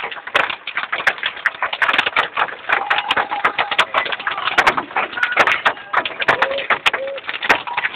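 Heavy rain pelting a car's roof and windscreen, heard from inside the cabin as a dense, irregular patter of sharp drop impacts.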